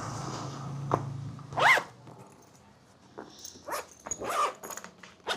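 Zipper on a soft motorcycle saddle bag being pulled: one loud quick stroke about one and a half seconds in, then several shorter strokes. A low background hum cuts off just before the first stroke.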